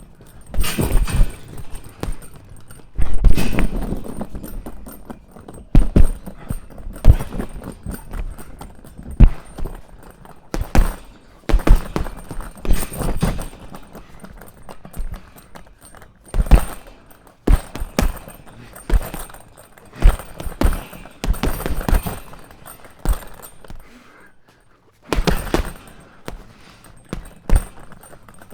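Punches landing on a punching bag: a long run of irregular thuds, some in quick pairs and flurries, with a short pause about twenty-four seconds in.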